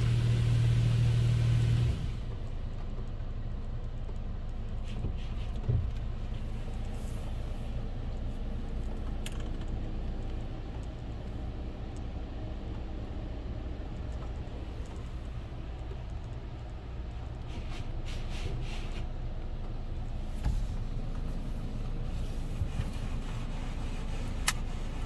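Water Wizard touchless car wash spraying the car, heard from inside the cabin: water hitting the glass and roof over a loud low pump hum, cutting off about two seconds in. After that a quieter steady low hum of the wash machinery, with a few faint clicks and drips.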